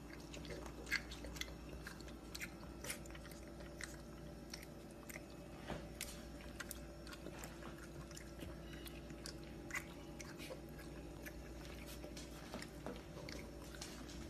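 A puppy's wet mouth sounds: irregular small licking and smacking clicks, over a faint steady hum.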